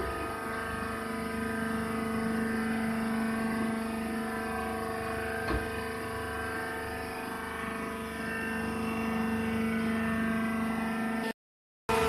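Wood-chip baler's motor and hydraulic pump running with a steady, even hum, with one short knock about halfway through. The sound cuts out briefly near the end.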